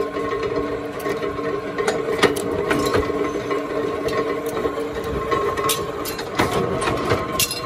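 Workshop machinery running with a steady hum, with irregular sharp metallic clicks and knocks over it.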